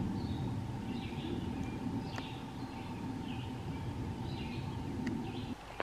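Short high bird calls every half second to a second in the woods, over a low rumbling noise that cuts off suddenly near the end.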